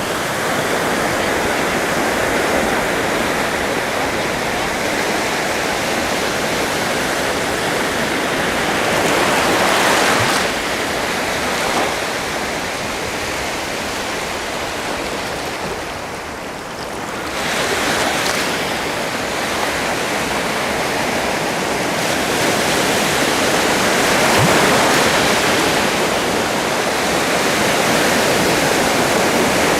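Sea surf washing onto a shore: a continuous rush of waves that swells and eases every several seconds, dipping briefly just past the middle.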